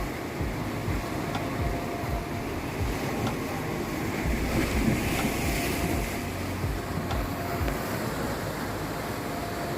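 Sea waves breaking and washing over rocks, with wind buffeting the microphone. One wave surges louder about halfway through.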